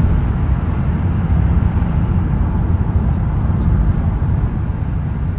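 Steady low road and engine rumble inside a moving car's cabin, picked up by a phone's microphone, with two faint clicks about three seconds in.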